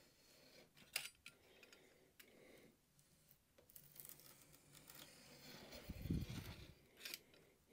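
Faint scratching of a sharp snap-off knife blade drawn along a straight edge through thin wood veneer, going over the cut again to finish cutting through. A few light clicks, and a short low thump about six seconds in.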